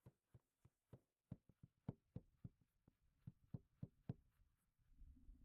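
Carrot being grated on a hand grater: quick, faint scraping strokes about four times a second, stopping about four seconds in. A low, steady rumble starts near the end.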